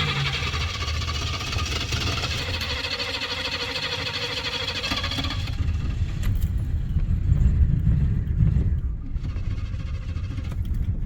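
A car's starter cranking the engine for about five seconds, then the engine catches and runs with a low, uneven rumble that swells a few times.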